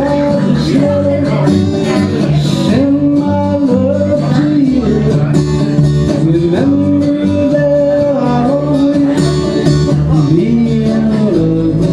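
A country-style song: a male singer holding long, gliding notes over guitar accompaniment and a steady bass.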